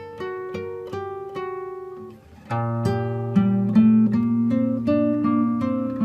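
Acoustic guitar instrumental music with picked notes. About two and a half seconds in it becomes fuller and louder, with low sustained bass notes under the melody.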